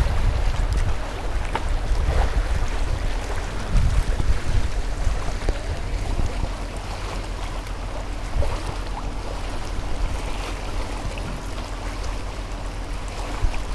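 Wind buffeting the microphone in gusts, over the steady wash of choppy sea water lapping around the raft.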